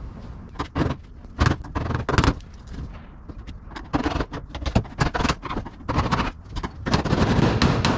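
Hammer knocking at a truck utility box compartment lock whose rivets have been drilled out, to drive it loose. A few separate sharp knocks, then a quicker run of knocks and rattling over the last few seconds.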